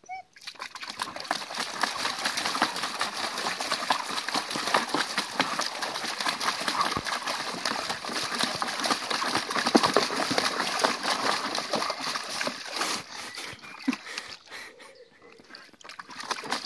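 Border collie pawing and stomping in a shallow plastic paddling pool, the water splashing and sloshing in rapid, irregular strokes. The splashing eases off for about a second near the end, then starts again.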